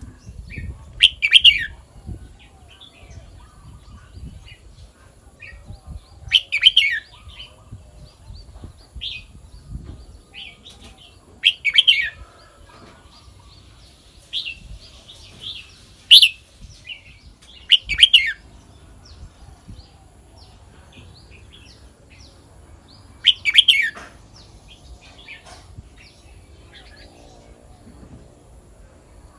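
Red-whiskered bulbul singing: six loud, short song phrases a few seconds apart, with softer chirps in between.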